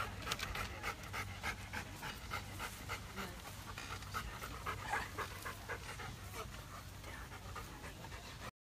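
Golden retriever panting in quick, even breaths, several a second, stopping suddenly near the end.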